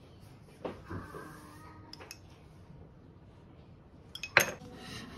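A spoon clinking against a ceramic plate and glass jar as dressing is spooned over food: a few light clinks in the first two seconds, one ringing briefly, and the loudest clink a little over four seconds in.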